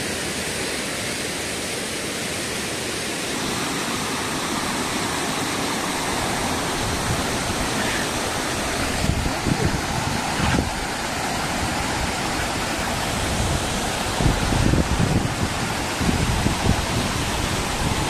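Rushing water of a rocky stream below a waterfall, cascading over rock slabs in a steady wash of noise. From about nine seconds in, low bumps are heard on the microphone.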